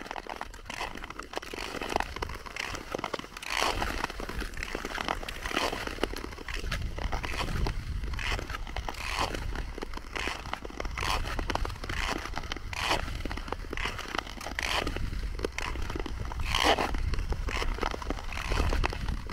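Tour-skate blades scraping across natural lake ice in a steady skating rhythm, about one gritty stroke a second, over a steady low rumble.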